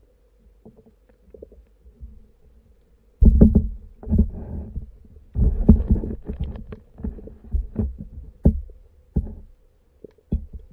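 Muffled low thumps and sharp knocks heard through an underwater action camera's waterproof case as catfish bump the camera. They come in irregular clusters from about three seconds in, over a faint steady hum.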